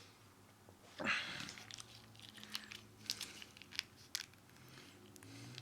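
A person biting into and chewing fried chicken wings: a crunch about a second in, then scattered small crunches and wet mouth clicks.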